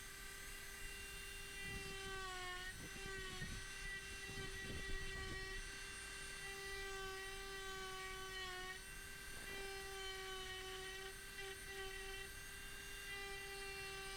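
High-speed rotary tool running with a steady high whine while engraving letters into wood, its pitch sagging briefly twice as the bit bites into the cut.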